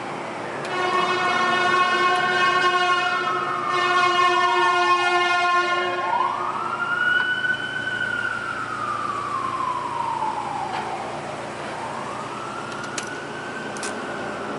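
An emergency vehicle's siren wailing, slowly rising and falling in pitch about every six seconds, with a long horn blast over it for the first few seconds. A few faint sharp clicks near the end.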